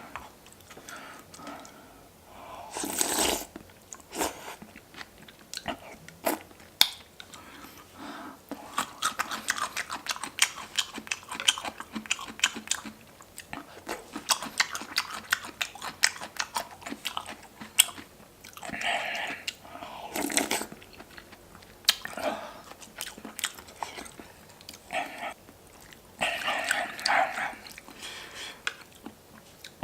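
Close-miked eating sounds from a meal of pork rib hangover soup: steady chewing and biting with crisp, crunchy bites, broken by a few louder noisy bursts.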